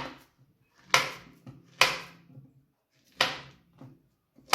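A kitchen knife chopping peeled bananas into pieces: sharp single strikes about a second apart.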